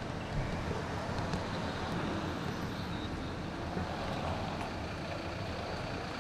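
Mercedes-Benz Citaro city bus driving along, a steady mix of engine and road noise.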